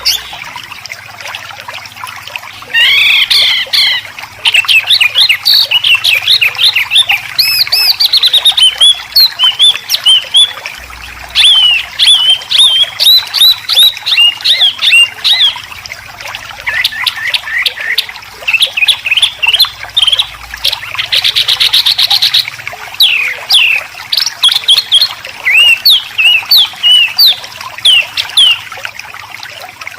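Songbird singing a fast, unbroken string of short whistled and chirping notes sweeping up and down, with a harsh buzzing rattle about two-thirds of the way through. These are 'besetan' phrases of the kind used as training song for white-rumped shamas and greater green leafbirds.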